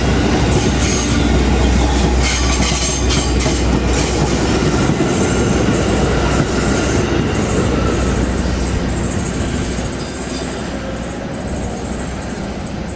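Electric commuter train passing close by, wheels clattering over the rail joints in quick clusters over a heavy low rumble. The rumble eases off over the last few seconds as the train moves away.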